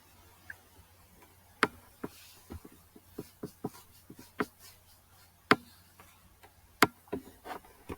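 Typing on a laptop keyboard: separate key clicks at an uneven pace, starting about a second and a half in, with a few sharper, louder strokes among them.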